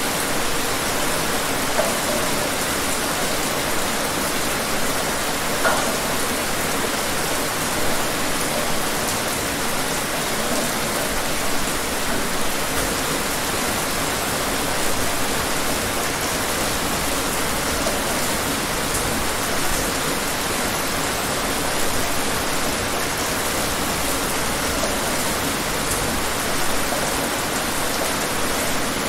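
Steady rain falling: an even hiss, with slightly louder drops every few seconds.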